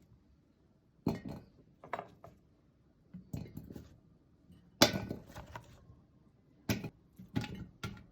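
Kitchen dishes and glassware clinking and knocking, about seven separate hits with quiet gaps between them, the loudest about five seconds in.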